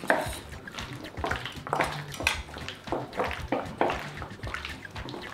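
Gloved hands mixing chicken wings in a sticky marinade in a stainless steel bowl: irregular wet squelches and sloshes, a few each second.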